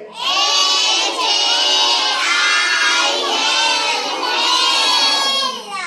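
A group of young children reciting together in unison, in a loud sing-song chant, most likely spelling out the word aloud as a class.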